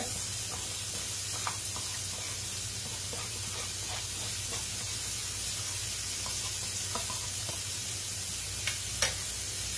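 Floured cube steaks frying in a skillet, a steady sizzle of hot oil. Over it come faint scattered ticks as leftover corn is tipped from a container onto a plate, with one sharper tap about nine seconds in.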